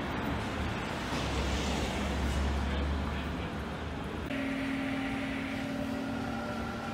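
Cars passing close by on a city street, with a low rumble that swells about two seconds in. About four seconds in, the sound changes abruptly to a steady mechanical hum with a few held tones.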